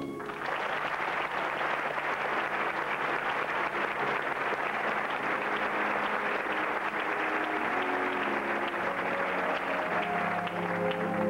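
Audience applause in a theatre, a dense steady clapping. Held orchestra notes come back in under it during the last few seconds.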